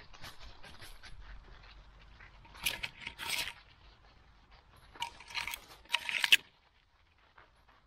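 Dry fallen leaves rustling and crunching as a dog noses and steps through them, in two short clusters of crackling about three and five seconds in, then going quiet.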